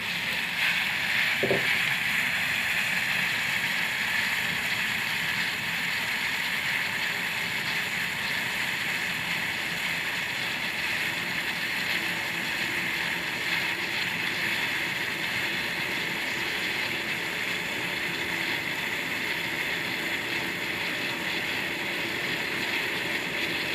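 Water boiling in a pot, a steady, even hiss.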